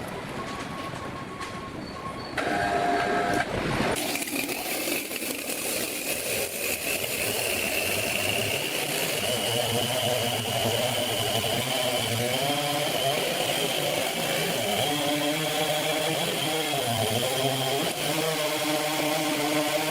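A motor-driven sawmill machine running. About four seconds in the sound changes to a steady high whine that slowly rises in pitch, over a lower engine note that wavers up and down.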